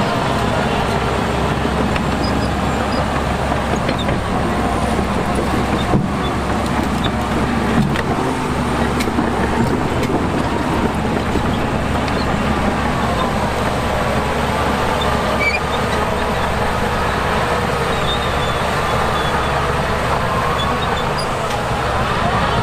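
Heavy earthmoving machinery's diesel engines running steadily, the engine note rising and falling as they work, with a couple of sharp knocks about a third of the way in.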